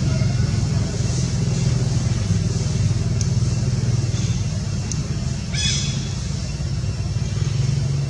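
A steady low rumble, like a motor running, with a brief rustling hiss about five and a half seconds in.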